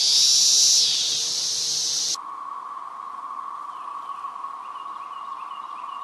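A loud, high-pitched hissing cicada buzz that cuts off abruptly about two seconds in. It is replaced by the chorus of Magicicada septemdecim, the common 17-year periodical cicada: a steady drone with faint falling wails over it, said to sound a bit like a wailing alien spaceship.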